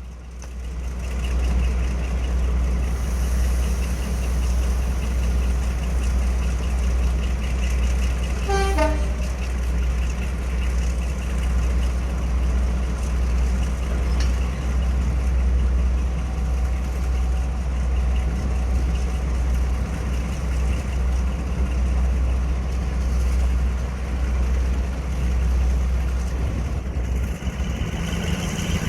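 Heritage diesel locomotive's engine running with a heavy, steady low rumble that swells up at the start, and a short horn toot about nine seconds in.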